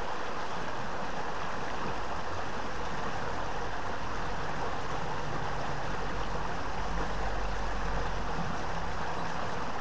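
Fast-flowing river current rushing steadily.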